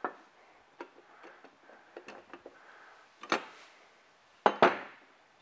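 Light clicks and knocks of hardware being handled: the cable spool of a hand-crank hoist being worked free of its metal housing once its axle is out. There is a sharper knock about three seconds in and two more near the end.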